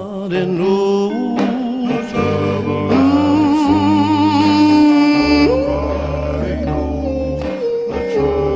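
Gospel song: a voice sings long, held notes, some with vibrato, over a steady bass line.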